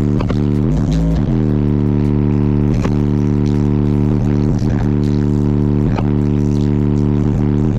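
Loud bass music played through a car audio system with two Avatar SVL 18-inch subwoofers on a Taramps 12K amplifier: a few sliding bass notes in about the first second, then one deep bass note held steady.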